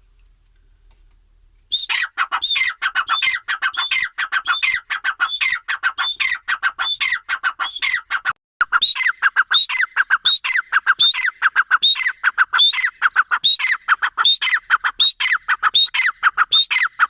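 Grey francolin calling loudly: a rapid string of repeated phrases, each with a high note falling away, about two a second. It starts about two seconds in and runs on, with one brief break near the middle.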